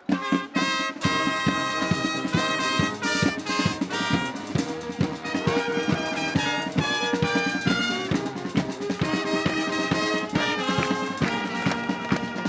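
Wind band playing, with trumpets and trombones over a steady marching drum beat. The full band comes in together right at the start.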